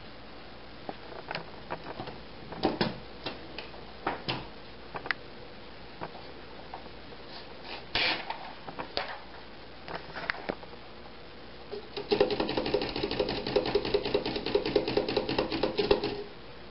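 1929 Underwood No. 5 Standard manual typewriter being typed on: scattered single keystrokes clacking, then a fast, continuous run of clattering strokes for about four seconds near the end that stops abruptly.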